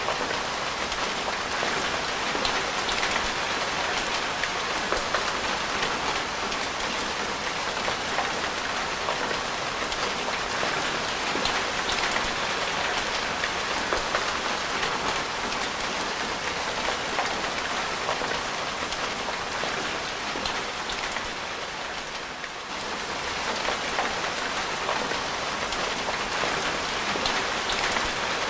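Steady rain falling, with individual drops ticking here and there; it eases for a moment about two-thirds of the way through.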